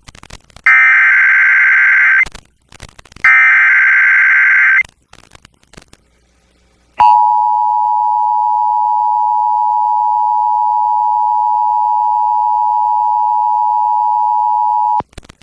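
Emergency Alert System tones opening a severe thunderstorm warning. First come the last two of the three SAME digital header bursts, two buzzy screeches of about a second and a half each. About two seconds later the two-tone attention signal (853 and 960 Hz) sounds steadily for about eight seconds and cuts off suddenly.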